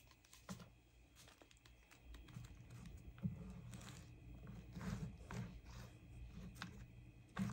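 Faint rustling of paper and small taps and clicks as paper pieces are handled and glued down on a desk.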